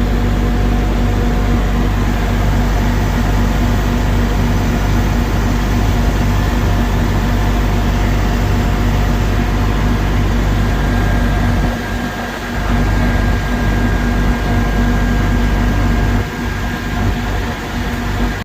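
Diesel truck engine running steadily to power a truck-mounted log loader's hydraulics. It eases briefly about twelve seconds in and again near the end.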